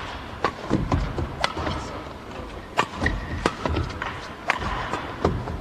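Badminton rally: sharp, irregular racket strikes on the shuttlecock, mixed with the players' footfalls and shoe squeaks on the court.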